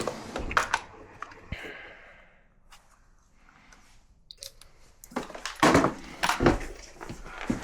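Scattered clicks and knocks of hands working a front-load washer's controls and cabinet, quiet in the middle and loudest in a cluster of knocks a little past halfway.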